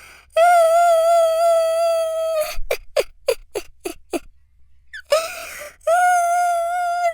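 A man crying: a long, drawn-out, wavering wail, then a run of about six short sobbing gasps, then a rising cry that breaks into another long wail.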